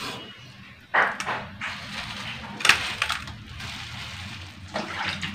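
Raw pork being cut on a boti, the floor-mounted curved blade: meat pressed and drawn against the edge, with sudden sharp cutting cracks about a second in, near three seconds and again near the end.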